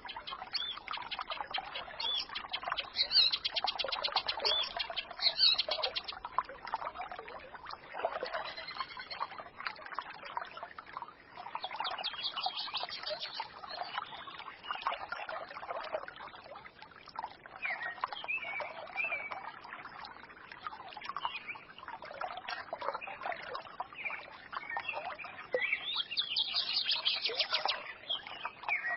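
A small forest stream gurgling and trickling, with songbirds chirping and twittering over it; quick high trills stand out a few seconds in and again near the end.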